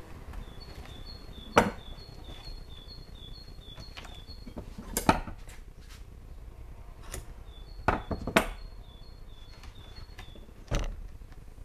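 Five sharp knocks, as of hard objects struck or set down, spaced unevenly. Between them come two runs of quick, high, alternating two-note chirps.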